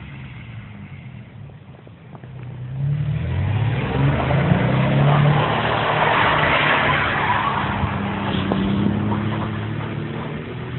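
Truck engine revving as it drives around a parking lot, its pitch rising and falling. It gets much louder about two and a half seconds in, with a rushing tyre noise at its loudest.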